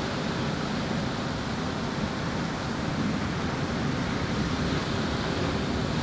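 Steady wash of ocean surf breaking along the beach.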